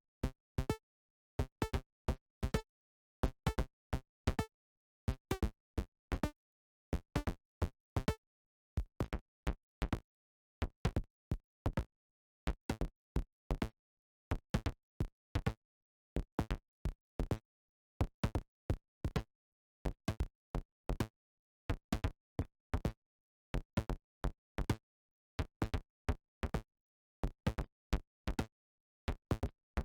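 Short synthesized percussion hits from the Surge software synthesizer, played over and over in a steady pattern with silence between strikes. The tone of the hits changes after about eight seconds, as the patch is adjusted.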